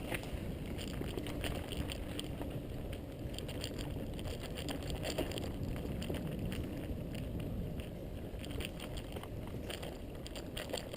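Mountain bike riding on a dirt trail: a steady rumble of tyres and wind on the microphone, with scattered clicks and rattles from the bike.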